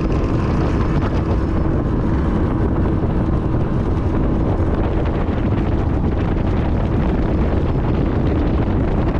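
17-foot Bass Tracker aluminium boat under way on outboard power: steady, heavy wind buffeting on the microphone over the constant drone of the motor.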